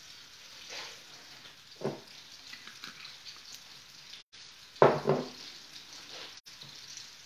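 Sausage-meat patties sizzling as they fry in oil in a pan, a steady hiss, with a few short knocks; the loudest comes about five seconds in. The audio drops out twice, very briefly.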